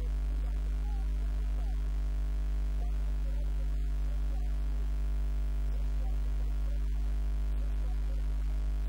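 Steady electrical mains hum: a strong low buzz with a ladder of unchanging overtones, and faint wavering pitched sounds underneath.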